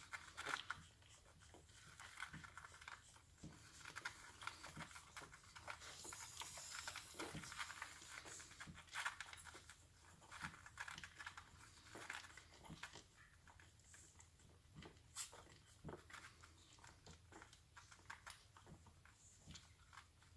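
Two-week-old Cairn terrier puppies suckling: faint, irregular wet clicks and smacks with soft rustling.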